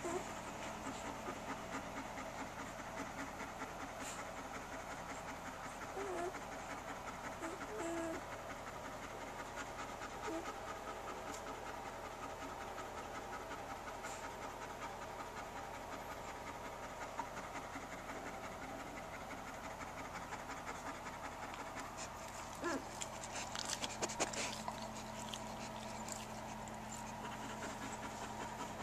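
German Shepherd mother panting steadily with her newborn litter nursing. A few brief squeaks sound in the first ten seconds, and a short patch of clicking comes about 23 seconds in.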